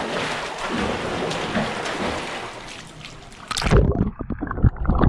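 Pool water splashing and churning close to an action camera sitting at the surface as a swimmer comes toward it. About three and a half seconds in, the camera goes under and the sound turns muffled, with loud low underwater thumps and rumbles.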